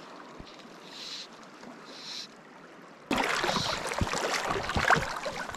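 Water splashing and sloshing in a river, starting suddenly about three seconds in and loudest after that; before it, only faint swishes over steady river noise.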